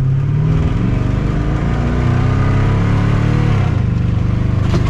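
Twin-turbo C5 Corvette V8 accelerating, its revs rising and then dropping about three and a half seconds in before holding steady. The engine is running with diesel fuel in the crankcase in place of oil.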